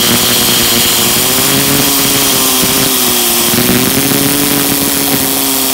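Air compressor in use: a loud, steady rush of compressed air with a motor-like whine that wavers slightly in pitch.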